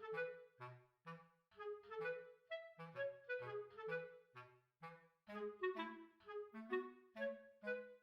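Background music: a light tune of short, detached notes on a woodwind over a bass line in a steady rhythm.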